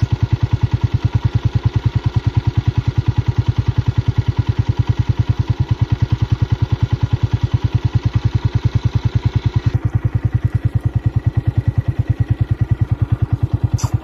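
Motorcycle engine idling close by with a steady, rapid, even beat.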